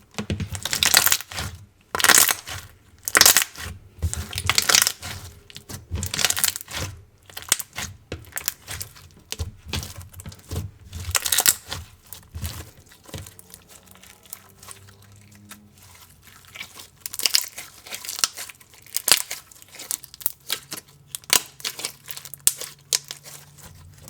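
Hands squishing, stretching and pressing slime, making irregular wet crackles, squelches and small pops of air bubbles. The play is loudest in the first dozen seconds, softer in the middle and busier again past the middle.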